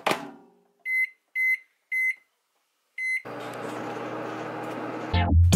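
Microwave oven keypad beeping four times as the cooking time is keyed in, after a knock at the start; then the oven starts and runs with a steady hum. Music comes in near the end.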